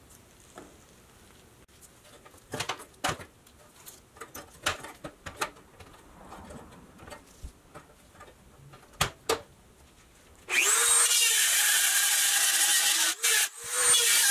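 A flat-bladed tool clicks and scrapes at the rusty steel tabs of a 1962 Tonka truck body, a few scattered times. About ten seconds in, a handheld rotary tool spins up with a brief rising whine and grinds steadily against the steel, much louder, with two short breaks near the end.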